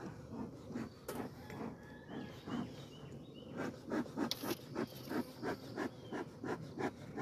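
A bee smoker's bellows being pumped in quick puffs, irregular at first and then about three to four puffs a second from about halfway, as the smoker has gone out. Honeybees buzzing around the hive.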